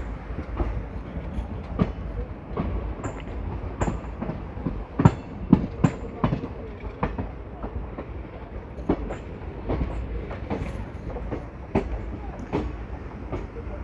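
Wheels of an Indian Railways passenger coach clattering over rail joints and pointwork as the train runs through a station yard. Irregular sharp clicks and knocks sit over a steady low rumble, with a loud cluster of knocks about halfway through.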